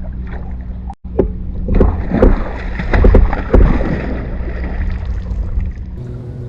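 Kayak on the water with a steady low hum, a brief cut-out about a second in, then several loud knocks and bumps against the boat.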